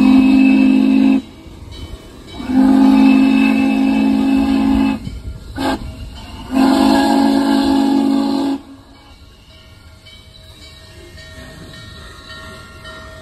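Steam whistle of Norfolk and Western J-class 4-8-4 No. 611 sounding a deep chime in four blasts: long, long, short, long, the standard grade-crossing signal. The whistle stops about two-thirds of the way through, leaving a much quieter steady background.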